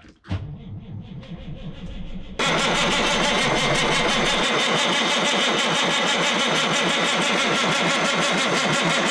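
Caterpillar 3406B inline-six diesel being cranked by its starter motor: a knock as it engages about a third of a second in, then steady, evenly pulsing cranking that is much louder from about two and a half seconds in. The engine turns over without firing, which the owner puts down to no 12 volts reaching the fuel shutoff solenoid.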